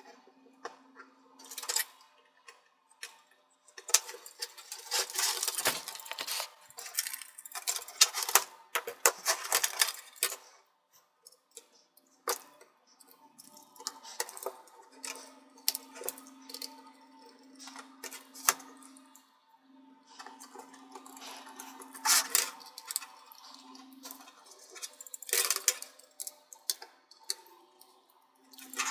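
Dense, rapid clicks and rattles of small plastic and metal parts being handled while a laptop touchpad is fitted into its palmrest, with a low hum coming and going.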